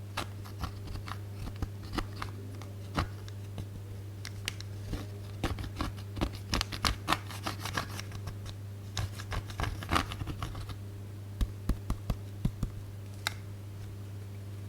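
Irregular sharp clicks and taps from close-up handling of slime and blush powder, coming in quick runs through the middle and again near the end, over a steady low hum.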